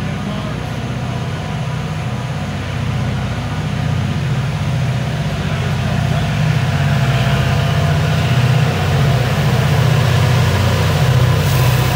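Diesel locomotive engine working under load, a low steady engine note that grows gradually louder.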